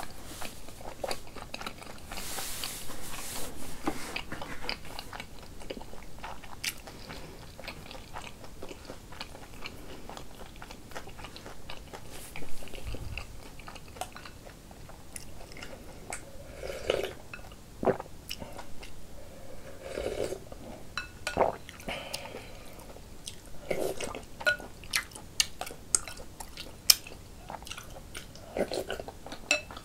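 Close-up chewing and mouth sounds of a person eating rice cake and dumpling soup, broken by many sharp clicks of a spoon against a glass bowl.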